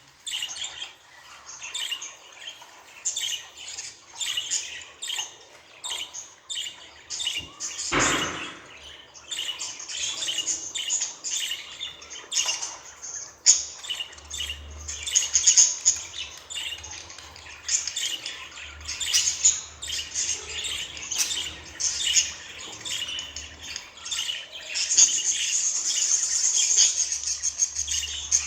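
Budgerigar chirping and warbling in a rapid, unbroken stream of short high chirps, growing denser near the end.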